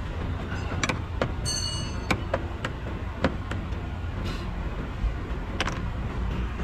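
Metal hand tools clicking and clinking against engine parts, a sharp click every second or so, with a brief high ringing tone about one and a half seconds in, over a steady low rumble.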